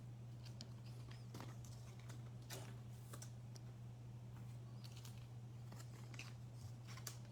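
Faint scattered clicks and rustles of trading cards being slid into thin plastic card sleeves, over a steady low hum.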